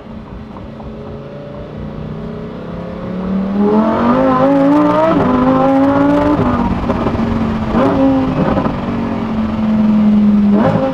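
Lamborghini Huracán STO's naturally aspirated V10 under hard acceleration: quieter at first, then its pitch climbs in steps from about four seconds in before holding steady. A few sharp exhaust pops come near the end, as the exhaust spits flames.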